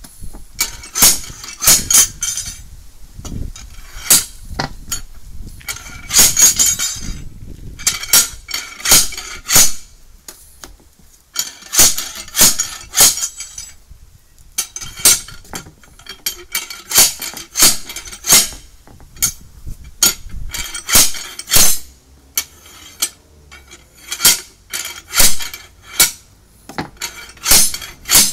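Long steel tyre lever bar clanking and scraping against an alloy wheel rim as a car tyre bead is levered over the rim by hand. It gives repeated sharp metallic clinks and knocks in bursts, with short pauses between them.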